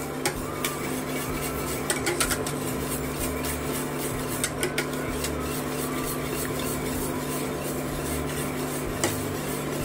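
Wire whisk stirring and scraping continuously around a stainless steel saucepan, with scattered light clicks of the wires against the pan, as water chestnut starch slurry thickens in hot syrup. A steady low hum runs underneath.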